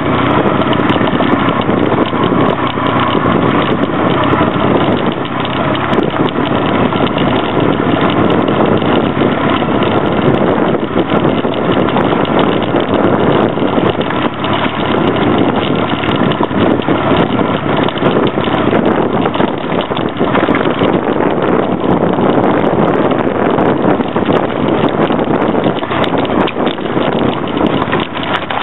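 Honda Rebel 250 motorcycle running steadily as it rides over loose gravel: a loud, continuous mix of engine and riding noise with no breaks.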